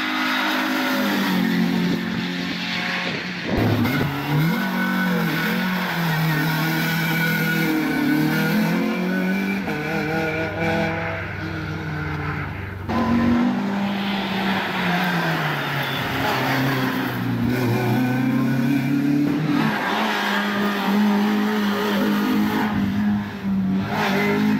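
Renault Clio race cars running hard through tight uphill bends, the engine note falling and climbing again over and over as the revs change. The sound switches abruptly to another car about 3.5 and 13 seconds in.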